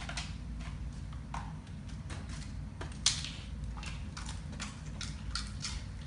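Light clicks and ticks of a Siberian husky's claws on a tile floor, irregular, with one sharp click about three seconds in, over a low steady hum.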